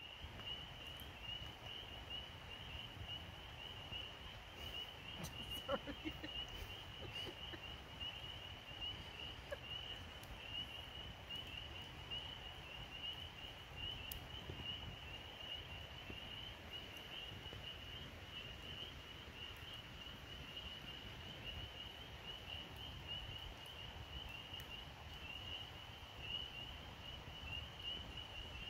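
Log campfire burning with faint crackles and occasional pops, behind a steady high-pitched pulsing trill.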